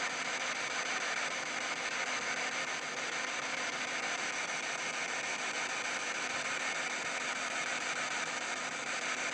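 P-SB7 spirit box sweeping the radio band, giving a steady hiss of radio static.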